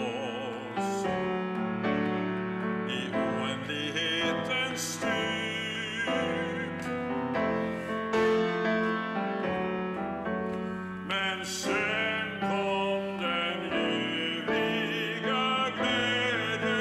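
A man singing a slow hymn-like song with vibrato while accompanying himself on a grand piano.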